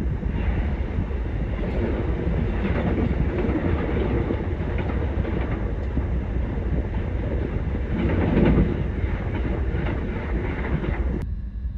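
Steady rumble of an ÖBB Nightjet sleeper train running at speed, heard from inside the carriage, with the wheels running on the rails. It swells louder briefly about eight seconds in.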